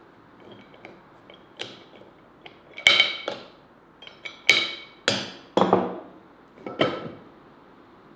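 Metal parts of an Afghan kazan's lid clamp being undone: light clicks as the clamp screw is turned, then several ringing metallic clanks from about three seconds in as the steel clamp bar is worked free and set down.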